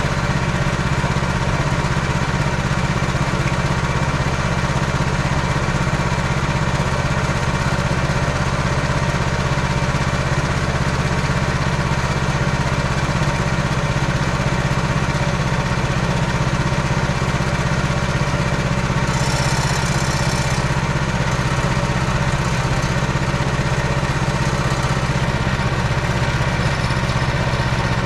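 Small MT8-070 MINI tractor's engine running at a steady speed while ploughing, with a short hiss about two-thirds of the way through.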